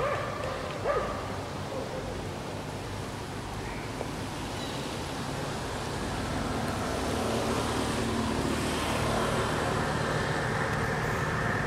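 A motor engine runs in the background, growing louder from about halfway through. There is a short high animal call about a second in.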